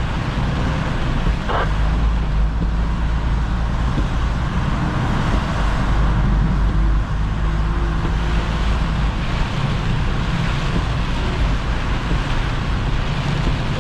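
Tractor-trailer's diesel engine running steadily in slow traffic, heard from inside the cab, over a steady hiss of rain and wet road.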